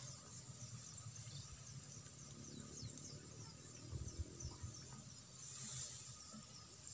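Faint open-field ambience: a steady high insect drone, with a quick run of short falling chirps in the middle and a few low knocks about four seconds in.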